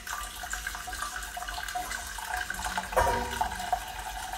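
Hot milk pouring steadily from a glass measuring jug into a stainless steel saucepan of roux, with a short knock about three seconds in.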